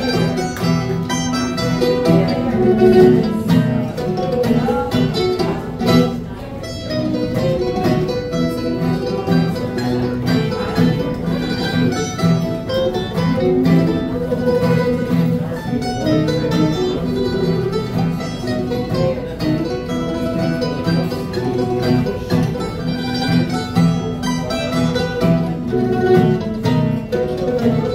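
Acoustic string trio playing a traditional dance tune: an acoustic guitar and two mandolin-family instruments, plucked.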